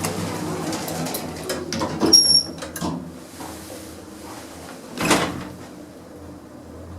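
Shopping-centre lift doors sliding shut, with clicks and rattles, a short high beep about two seconds in, and a thump about five seconds in as they close.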